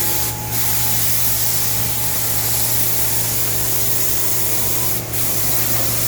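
Compressed-air paint spray gun hissing steadily as it sprays the car's body panels, with brief breaks in the spray just after the start and about five seconds in, over a steady low hum.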